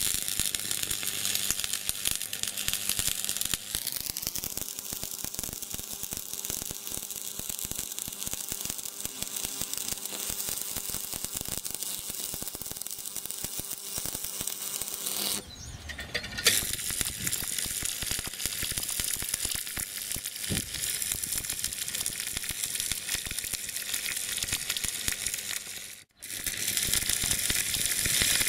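Stick (shielded metal arc) welding on square steel tubing: the arc crackles and sizzles steadily. The crackle shifts about halfway through and briefly cuts out near the end.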